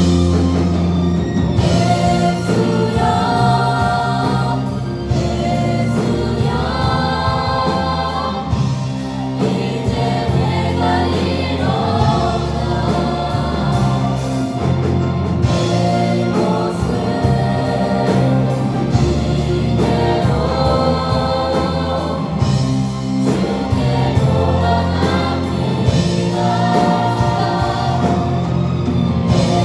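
A group singing a praise song with band accompaniment and steady bass notes.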